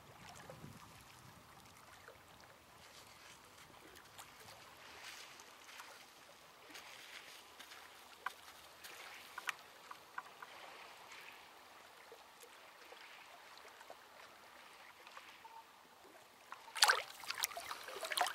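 Faint lapping of small waves against a rocky lakeshore with a few soft ticks. Near the end a hand goes into the shallow lake water, giving a brief burst of splashing.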